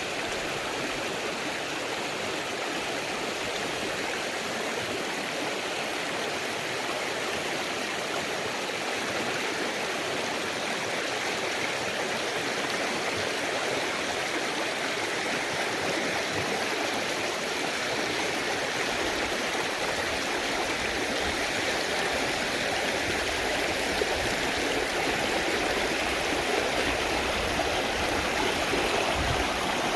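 Mountain stream rushing steadily over rocks in a valley, an even, continuous water sound, with a deeper rumble growing in over the second half.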